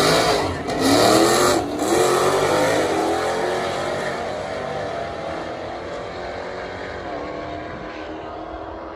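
Drag-racing car's engine at full throttle on the strip. Its note breaks briefly twice in the first two seconds, then fades steadily as the car pulls away.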